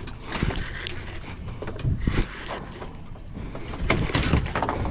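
A Penn Squall conventional fishing reel being cranked to bring in a hooked fish, with irregular mechanical clicks and knocks from the reel and rod handling, loudest about two seconds in and again near the end.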